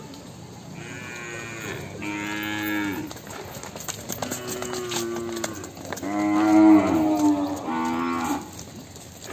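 Gir heifers mooing repeatedly, about five drawn-out calls one after another, the loudest about two thirds of the way through.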